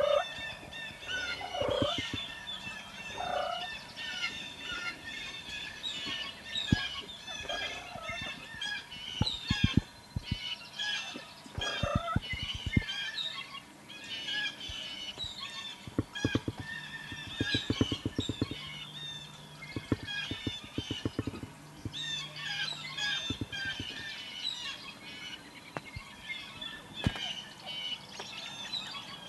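Wild turkey gobbling, a few times in the first seconds and again later, over steady songbird chirping. Runs of quick sharp clicks come in the middle.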